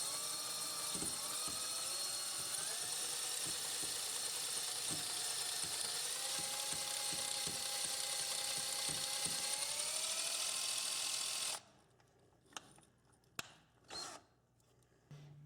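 Electric drill spinning a cylinder hone inside the rusty air-motor cylinder of a 1-inch air impact wrench, running steadily with its pitch stepping up a few times, cleaning rust and grime off the cylinder wall. It stops suddenly about eleven and a half seconds in, followed by a few light knocks.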